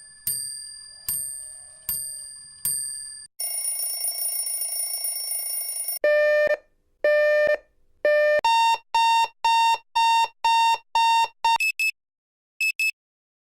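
A run of clock and alarm sound effects. First come four sharp, ringing strikes a little under a second apart, then a continuous alarm-clock bell ringing for about two and a half seconds. After that, electronic alarm beeping: three long low beeps, then a quicker run of higher beeps, and near the end a few short high chirps.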